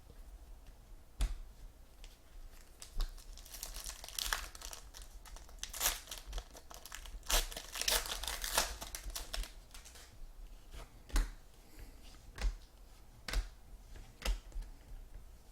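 Trading card pack wrappers being torn open and crinkled, with a dense stretch of crackling in the middle and sharp clicks and taps of card handling through the rest.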